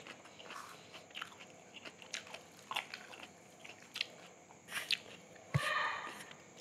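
Close-up chewing of crispy fried chicken: irregular crisp crunches from the mouth, with one louder, longer sound about five and a half seconds in.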